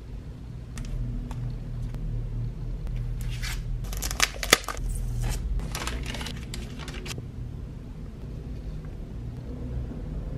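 Paper and plastic packaging crinkling as it is handled: a kraft paper bag and plastic-sleeved sticker sheets. The rustling is loudest from about three to seven seconds in, with two sharp snaps about four seconds in, over a low steady hum.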